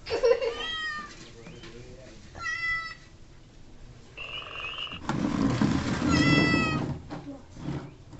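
Cat meowing: three drawn-out meows a few seconds apart, each dipping slightly in pitch, the last one with a rushing noise beneath it.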